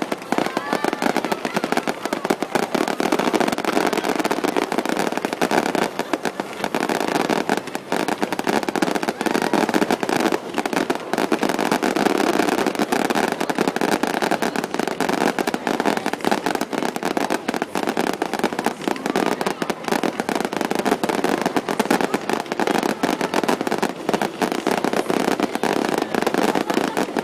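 A fireworks display: shells bursting in a dense, unbroken barrage of sharp cracks and bangs.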